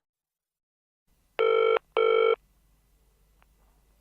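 Telephone ringing: a double ring of two short, steady electronic tones about a second and a half in, the double-ring pattern of a British phone.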